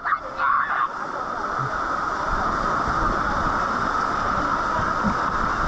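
Steady roar of a waterfall pouring into its plunge pool, with wind buffeting the microphone; a brief voice in the first second.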